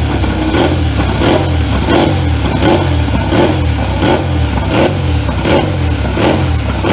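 Ducati Desmosedici MotoGP V4 engine running on its warm-up in the pits, held at a steady fast idle with a short throttle blip repeated evenly about every 0.7 seconds.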